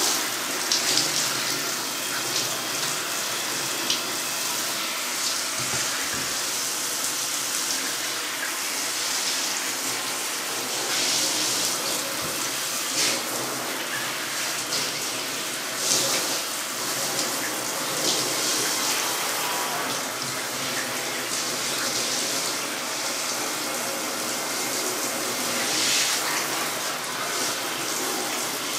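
Water running steadily from a bathtub tap, rinsing a cat sitting in the tub, with small swells as the flow is moved over its coat.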